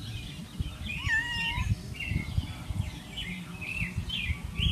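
Small birds chirping in short, repeated calls, a few a second, with one longer wavering call about a second in, over a low rumble.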